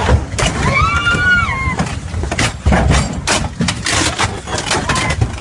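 Rapid knocks and clattering in an open safari vehicle as it jolts, over a low rumble, with one high cry rising and falling about a second in.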